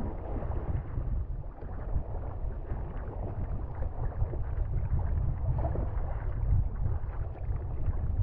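Steady wind rumble on the microphone over water sloshing and splashing around a sea kayak being paddled.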